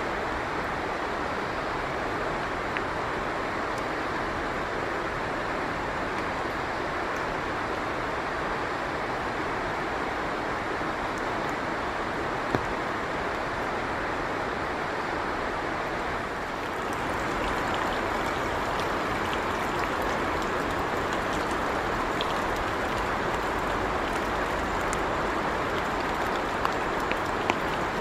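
Steady rain, an even hiss with no letup, with a few sharp ticks near the end.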